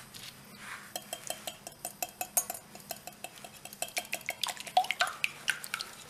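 Stainless wire balloon whisk beating raw eggs in a glass mixing bowl, its wires clicking against the glass in a quick, even rhythm of about six strokes a second, starting about a second in.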